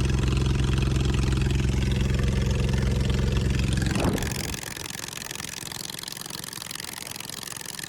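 Lawn mower engine in a truck running steadily. About four seconds in, its note falls away quickly and it stops, leaving only a steady hiss.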